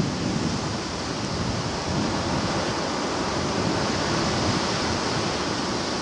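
Sea surf washing steadily against the shore, with wind.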